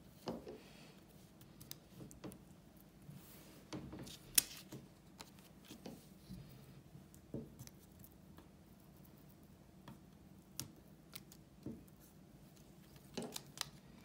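Paper cut-outs and a glue stick handled on a wooden table: scattered light clicks and taps with a few short soft rustles, the sharpest click about four seconds in.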